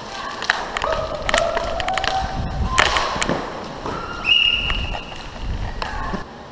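Inline skate wheels rumbling over plastic sport-court tiles during roller hockey play, with several sharp clacks of sticks and puck and some distant shouts from players.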